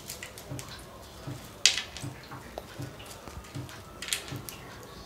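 Crisp fried besan sev strands crackling and rustling as a hand lifts and crumbles them, with one sharper crunch about a second and a half in. The crackle is the sign of sev fried fully crisp, crumbling at a touch.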